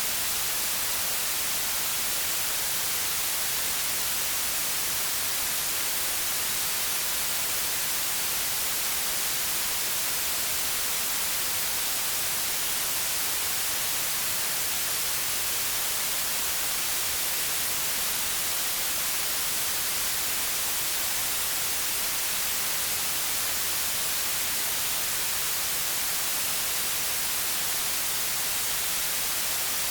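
White noise: a steady, unchanging hiss, strongest in the high frequencies.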